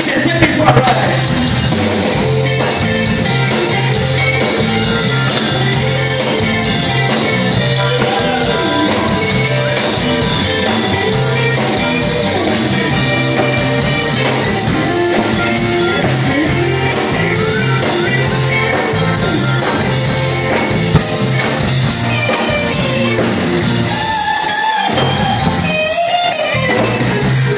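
Live band playing a Chamorro song medley: electric guitars, bass, drums and keyboard, with a woman singing. The bass drops out briefly near the end.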